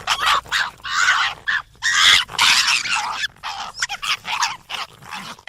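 Fox calling: a continuous run of harsh, raspy, high-pitched yelps and barks, uneven in rhythm, which stops abruptly.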